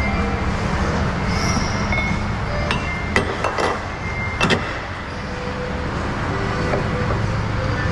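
A few sharp metallic clinks and knocks in a quick cluster about three to four and a half seconds in, from a flatbed cargo strap and its hardware being handled against the trailer's steel side rail, over a steady low mechanical hum.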